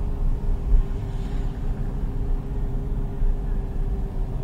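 Porsche 911 GT3 flat-six engine with a Sharkwerks exhaust bypass, running at low revs as the car rolls slowly, heard from inside the cabin: a steady low rumble with a thin steady tone over it.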